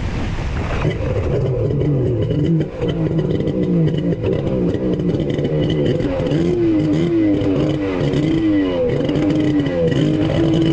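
Kawasaki 1100 triple two-stroke jet ski engine revved in repeated throttle blips, its pitch rising and falling again and again, then settling to a steady run near the end. This is the engine's first test run after being rebored and rebuilt.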